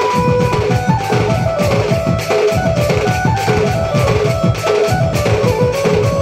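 Sambalpuri baja folk band playing: barrel drums (dhol) beaten in a fast, dense rhythm, with a melody of held notes stepping above the drumming.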